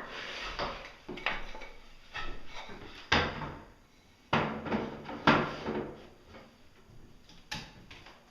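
Irregular knocks and clatters, about seven over the stretch, each sharp with a short fading tail: wooden stock and the guards of a router table being handled and set in place. No router motor is running.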